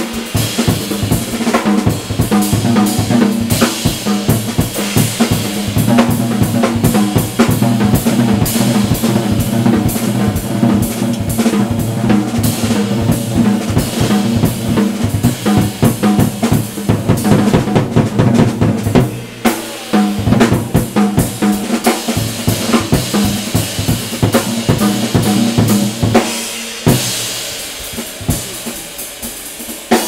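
Jazz drum kit solo: fast, dense strokes on snare, toms and bass drum under the cymbals, the toms ringing. The playing drops back briefly about two-thirds of the way through, then thins near the end to a cymbal wash and scattered single accents.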